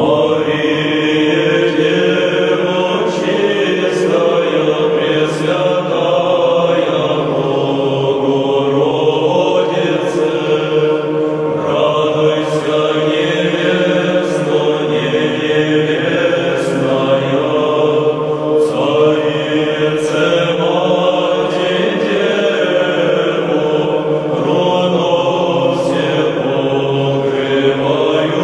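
Chanted vocal music: a melodic vocal line moving over a steady, held drone note.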